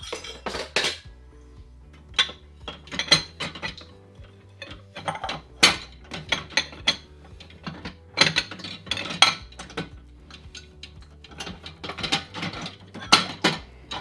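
Ceramic bowls, plates and a cup clattering and clinking against each other and the wire rack of a mini countertop dishwasher as they are loaded in, in irregular bursts.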